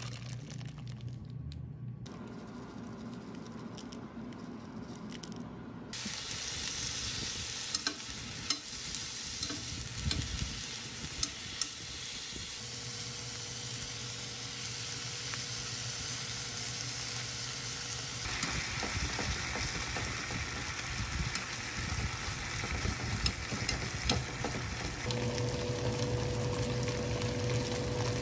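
Food sizzling in a hot frying pan as webfoot octopus and red chili sauce are stir-fried with meat, with scattered clicks and scrapes of a metal utensil against the pan. The first few seconds are quieter, then the sizzling takes over about six seconds in, over a steady low hum.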